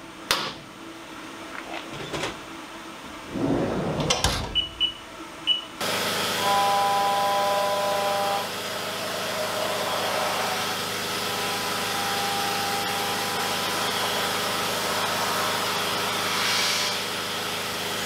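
A few clunks and three short high beeps, then about six seconds in the Haas VF-2SS CNC mill's running starts abruptly: spindle and flood coolant spraying steadily as an end mill takes a light cut in aluminium, with a clear whine from the cut twice.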